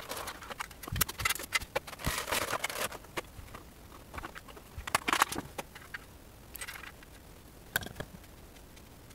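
Thin plastic blister-tray packaging being handled and pulled from a cardboard box: scattered clicks, crinkles and scrapes of plastic, busiest in the first three seconds, with a few more around five seconds in.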